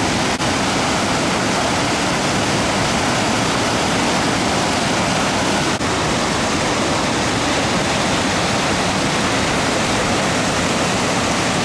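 Loud, steady rushing of white water churning through a river rapid, dipping briefly twice.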